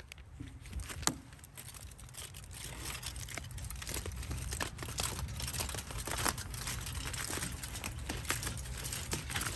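Aluminium foil crinkling and crackling as a crumpled sheet is handled and smoothed flat, with plastic food packaging rustling near the start. A sharp click comes about a second in.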